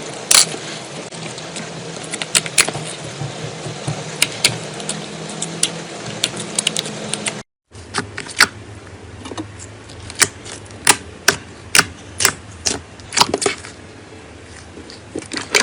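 Slime being squeezed and worked by hand, giving sharp, irregular clicks and pops over a soft squishing hiss, with a sudden break about halfway through.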